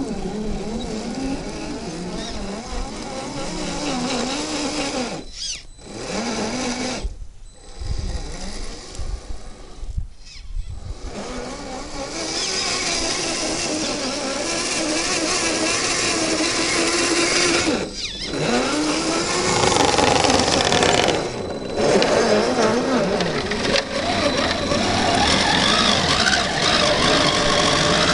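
Electric motor and geared drivetrain of a 1/10-scale RC crawler whining as it climbs dirt mounds. The pitch rises and falls with the throttle, and it cuts out briefly several times when the truck stops.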